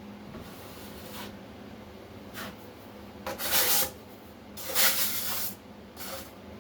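Steel drywall trowel spreading joint compound across a butt joint: about four scraping strokes, the two longest and loudest a little past three seconds and just under five seconds in.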